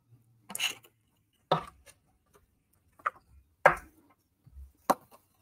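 Paper snips cutting dark blue cardstock: about five short, sharp snips at uneven intervals, the loudest a little past the middle, as the tabs and flap of a card box are angle-cut.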